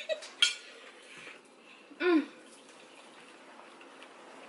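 A short vocal sound from one of the women, its pitch rising then falling, about two seconds in. There is a single click near the start; the rest is quiet room tone.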